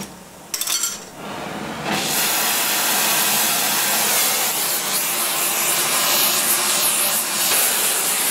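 A gas torch running with a steady hiss that starts about two seconds in, after a few knocks, as the flame heats the part up toward brazing temperature.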